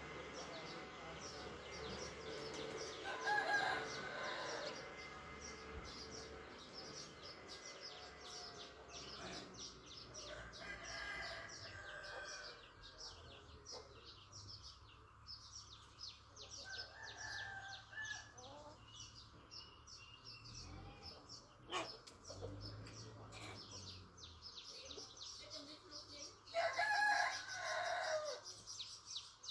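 Roosters crowing several times, loudest about three seconds in and again near the end, with chickens clucking and high, rapid chirping throughout.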